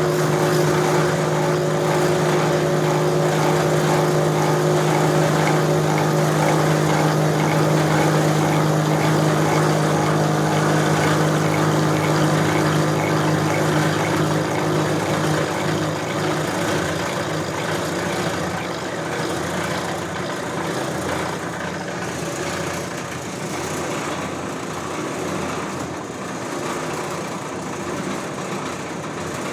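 Brake lathe running steadily while cutting a C6 automatic transmission clutch backing plate down. It makes a steady hum with several steady tones, which fade about halfway through, leaving a quieter, even running noise.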